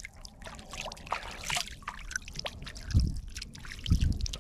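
Water splashing and dripping beside a kayak as a hand lets a pickerel go and it swims off, with many small sharp splashes. Two dull thumps come about three and four seconds in.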